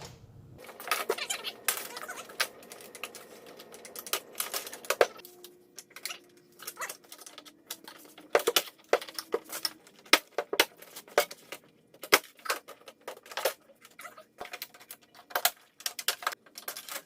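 Irregular sharp clicks and light knocks of plastic clips, connectors and hand tools as a Mazda3 door panel is opened and its wiring harness is taken out.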